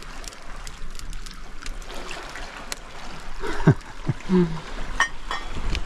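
Small sea waves lapping and trickling among shoreline rocks, with scattered small clicks.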